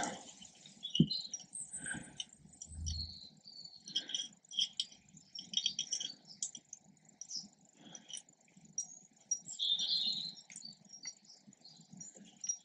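Tractor brake shoes and springs being worked into place on the rear brake backing plate by hand: irregular small metal clicks, scrapes and rattles, with a knock about a second in.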